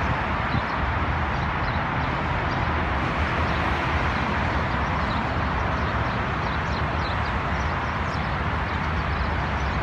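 A steady rush of multi-lane highway traffic with a low rumble beneath it. Short high chirps are scattered through it.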